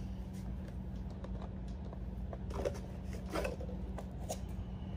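Hands handling cardboard packaging: a few short rustles and light knocks, mostly in the second half, over a steady low hum.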